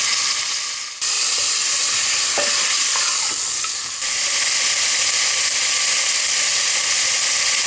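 Lamb pieces sizzling steadily as they fry in oil in a stainless steel pressure cooker, while the meat's own water cooks off. The sizzle dips briefly twice, about a second in and near four seconds.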